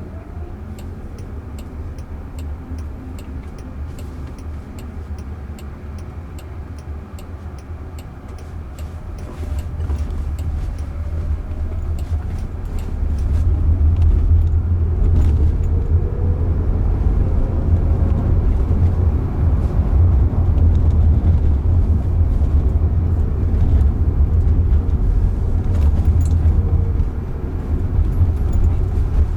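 Road and tyre rumble inside a moving Waymo robotaxi's cabin, growing louder about halfway through as the car picks up speed. During the first third there is a regular ticking, about two a second.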